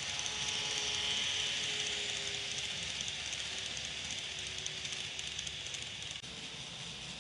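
KATO N-gauge 683 series Thunderbird model train running along its track: a steady hiss of wheels on rails over a faint motor hum. It is loudest about a second in and fades as the train moves away.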